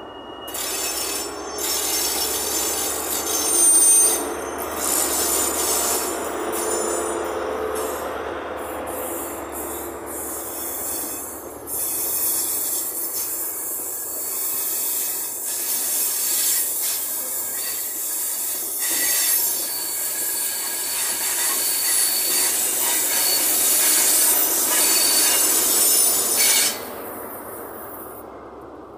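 ScotRail Class 43 HST passing along the platform: wheels squealing and rail noise from the coaches going by, with the low rumble of the leading power car's diesel engine for the first dozen seconds or so. The sound drops off sharply a couple of seconds before the end as the train clears.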